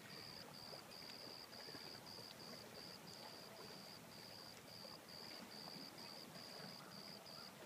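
Faint high-pitched insect chirping, short pulses at one steady pitch repeating about twice a second, over a faint outdoor hiss.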